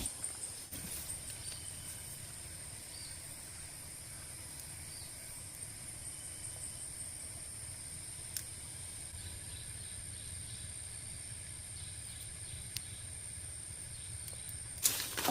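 A steady, high-pitched insect drone over a low background rumble, with a few faint clicks and a brief burst of louder rustling or scraping near the end.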